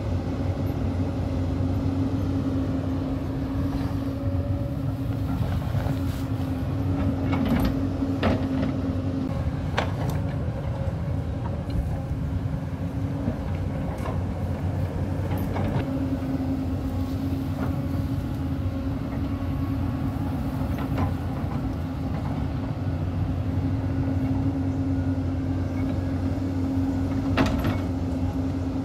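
Hyundai crawler excavator's diesel engine running steadily while the machine digs into a dirt hillside. Occasional sharp knocks and clatters from the bucket working soil and rock, the loudest near the end.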